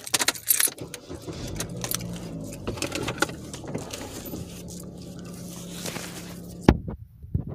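Handling noise: irregular clinks, rattles and rustles over a low, steady rumble, ending in one sharp, loud click near the end.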